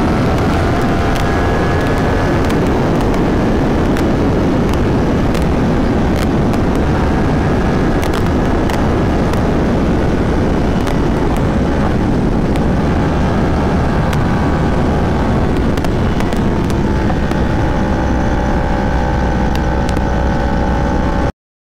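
2019 Yamaha R1's crossplane inline-four running at high speed under heavy wind rush over the bike-mounted microphone, its note shifting as the bike slows and drops from fourth to third gear. The sound cuts off suddenly near the end.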